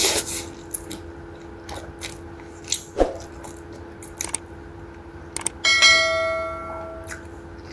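A mouth slurps up noodles at the start, followed by scattered chewing clicks. About five and a half seconds in, a mouse-click and notification-bell ding from a subscribe-button animation rings out and fades over about a second.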